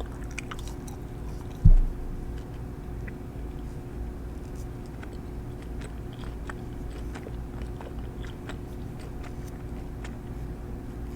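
Soft, scattered clicks and crackles of small things handled close to the microphone while painting nails, over a steady low hum, with one dull thump just under two seconds in.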